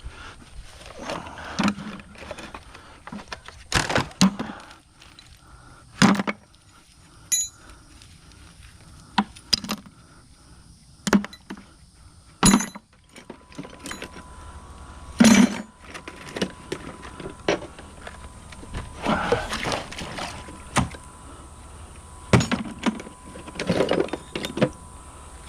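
Rusty metal hand tools clanking as they are sorted and tossed into a scrap bucket: a dozen or so sharp clanks at irregular intervals, some in quick clusters.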